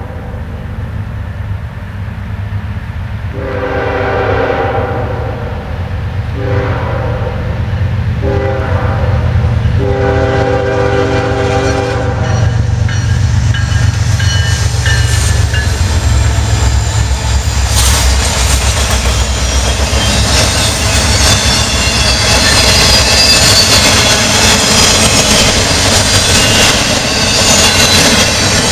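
Norfolk Southern diesel freight locomotives sound their horn for a grade crossing, long, long, short, long, over the low rumble of their engines. The train then rolls close by: the locomotives pass, followed by the steady loud clatter and wheel noise of intermodal cars carrying highway trailers.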